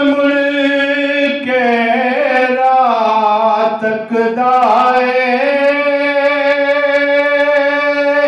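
A man singing a naat solo in long held notes, with wavering melodic turns about two and five seconds in; the phrase ends at the close.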